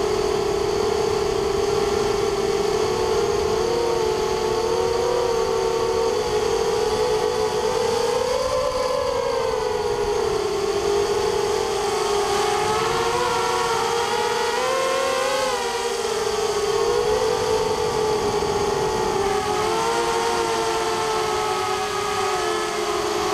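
Small carbon hexacopter's six 2300 kV brushless motors and propellers whining steadily in flight, the pitch wavering up and down as the throttle changes.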